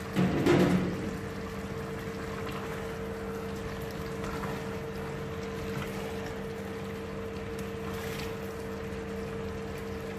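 A wooden spoon stirring a thick mutton and potato curry in a stainless steel pot, over the steady hum of an induction cooktop. A brief louder knock about half a second in.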